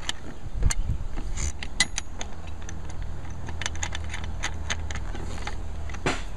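Irregular light metallic clicks and clinks of a bolt being threaded by hand into a threaded plate in a roof rail track as a metal rack leg is set in place, over a steady low rumble.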